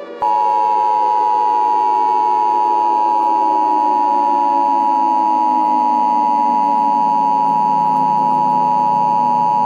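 Emergency Alert System attention signal: two steady tones of about 853 and 960 Hz sounding together, loud and unbroken from a moment after the start. Under it, a fainter layer of several tones slowly glides downward in pitch.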